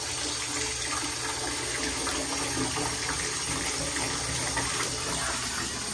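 Bathtub faucet running steadily, filling the tub, the stream splashing over a hand held under the spout.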